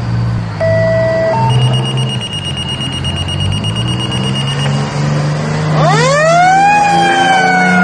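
Aerial ladder fire truck's diesel engine running as it pulls out, with a steady high-pitched alarm tone sounding until about two-thirds of the way through. Near the end the truck's siren winds up sharply and starts to fall slowly.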